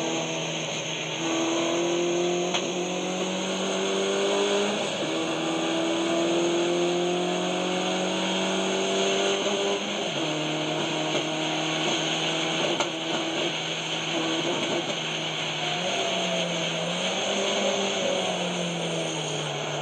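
Car engine, which has a misfire, running under way. Its pitch climbs slowly and drops back several times over a steady hiss, with one sharp click about 13 seconds in.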